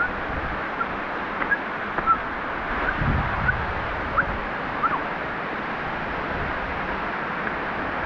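Steady rush of falling water from a waterfall, with a few short high chirps over the first five seconds.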